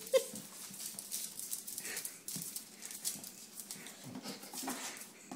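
Small dog with its head inside a leather work boot, scratching at it and shoving the boot across a tile floor: irregular scrapes and clicks, a sharp knock just after the start, and a few short whimpers.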